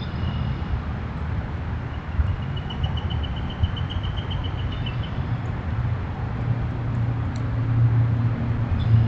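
A steady low rumble that grows louder near the end, with a small bird's even trill of about eight quick notes a second, lasting about three seconds.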